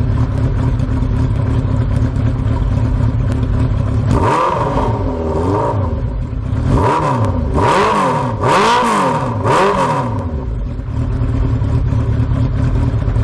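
Yamaha XJ600N's air-cooled inline-four idling through a Delkevic stainless exhaust with the baffle removed, then revved in a run of quick throttle blips from about four to ten seconds in before settling back to idle. With the baffle out it is a bit louder.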